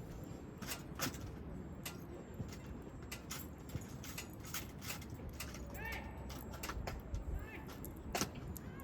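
Wood campfire crackling and popping in irregular sharp snaps. A bird gives a short call a little past the middle.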